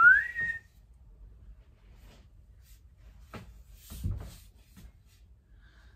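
A person whistles a short rising note in the first half second, then a few faint knocks about three and four seconds in.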